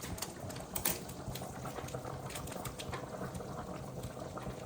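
Chicken curry boiling in a pot, bubbling with irregular small pops.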